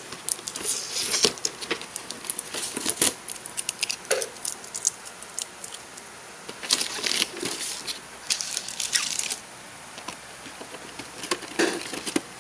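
Clear adhesive tape being picked at and peeled off a cardboard figure box. The tape rips and the cardboard scrapes in irregular bursts with short pauses between, busiest in the first few seconds.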